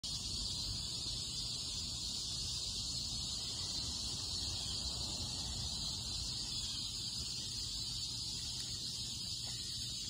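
Steady insect chorus, an even high-pitched buzz that does not change, over a faint low rumble.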